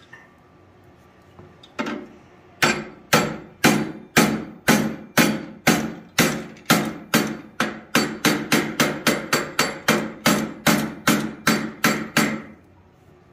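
Blacksmith's hand hammer striking steel bar on the anvil. One blow comes, then after a short pause a steady run of about two dozen strikes, about two a second at first and quickening to about three a second.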